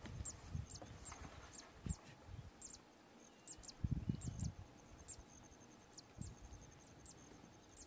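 Animal chirping: a steady series of short, very high chirps, each dropping quickly in pitch, about two or three a second with a brief pause partway, over a faint steady high tone. Irregular low rumbles and bumps come and go underneath.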